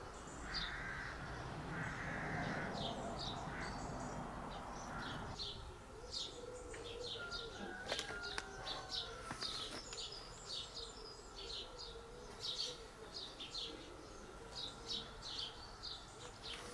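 Garden birds calling, with short high chirps repeated throughout and a few harsher, noisier calls in the first few seconds.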